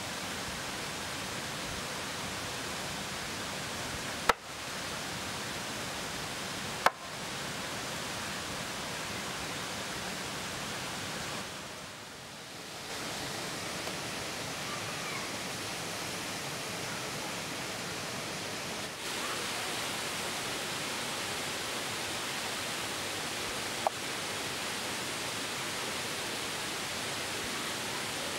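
Steady rushing of a waterfall, with a few short sharp clicks.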